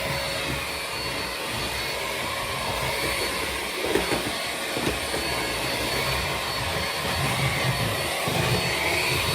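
Hoover ONEPWR cordless stick vacuum running steadily on a hard floor, a steady suction rush with a high motor whine, sucking up cut hair; a few light bumps of the nozzle come midway.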